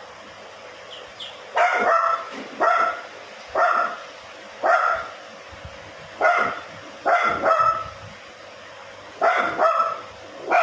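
Shih Tzu puppy barking repeatedly: about ten short barks in ones, twos and threes, starting about a second and a half in.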